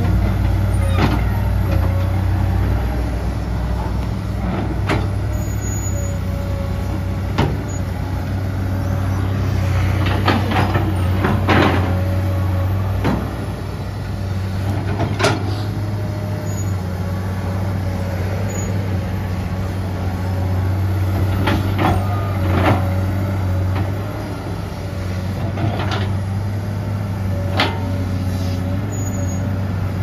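Komatsu PC200-8M0 hydraulic excavator working, its diesel engine running steadily with a faint steady whine over the low hum. Irregular sharp knocks and cracks from the work break in every few seconds, thickest around ten to twelve seconds in.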